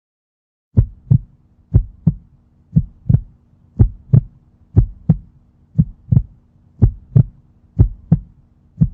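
Heartbeat sound effect: a steady lub-dub, a pair of short low thumps about once a second, over a faint hum. It starts about a second in.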